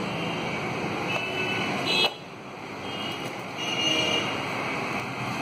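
Crinkling and rustling of a plastic bubble mailer as it is handled, with a short lull about two seconds in.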